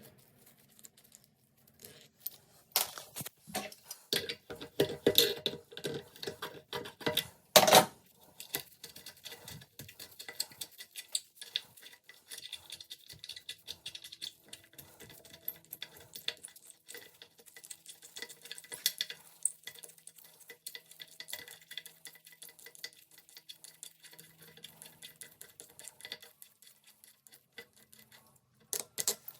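Ratchet and socket clicking in quick runs on the toilet's tank-to-bowl bolts, with light metal clinks and a few sharper knocks in the first several seconds.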